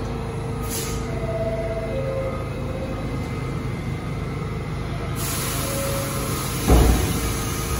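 New York City subway trains of R46 cars running in an underground station, a steady low rumble. A steady hiss comes in suddenly about five seconds in, and there is a short, loud low thump near the end.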